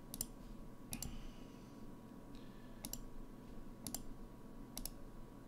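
Computer mouse clicking: a quick pair of clicks, then single clicks roughly a second apart.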